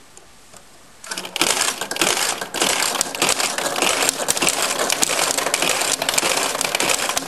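Steel balls of a Galaxy Railways pachinko machine being fired into the playfield and clattering down through the pins, a dense, fast rattle of metal clicks that starts suddenly about a second in.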